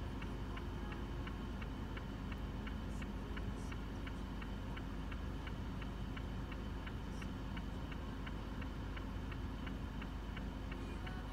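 Car indicator ticking at an even rate of about three clicks a second, over a low steady hum, heard inside the car's cabin.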